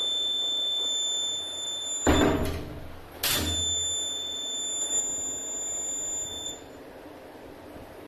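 Piezo buzzer of a homemade 9 V door alarm giving a steady high-pitched tone, triggered by the door opening and releasing a limit switch. About two seconds in there is a door thump and the tone cuts off; a second later another thump and the tone comes back, stopping again about a second and a half before the end.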